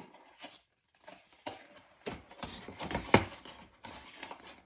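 Cosmetic products and their packaging being handled: scattered light rustles and small clicks, with one sharper knock about three seconds in.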